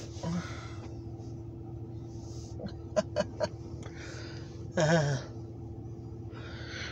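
Diesel locomotive idling with a steady low hum. A few light clicks come about three seconds in, and a short voice-like grunt comes about five seconds in.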